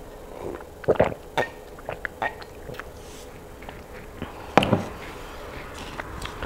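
Drinking orange juice from a glass mug close to a clip-on microphone: gulps and small wet mouth clicks. A little past halfway there is a sharp knock as the glass mug is set down on the table.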